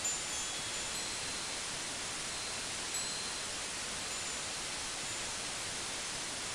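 Steady, even hiss like static, with a few faint, brief high-pitched tones now and then.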